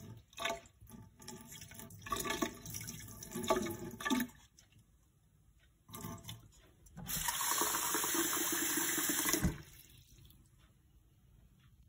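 Water from a cup of fermenting tomato seeds poured off into a stainless-steel sink, splashing in uneven spurts for about four seconds as the floating debris is rinsed away. About seven seconds in, a kitchen tap runs steadily into the cup for two or three seconds and is turned off.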